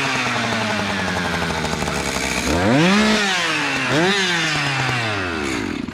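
Echo two-stroke chainsaw running loudly, its throttle blipped so the engine revs up and falls back about three times, the longest rev about halfway through.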